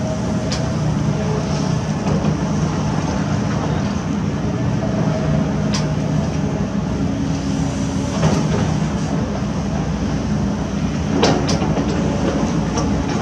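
Heavy construction machine's diesel engine running steadily, with a few sharp metallic clanks, several close together near the end.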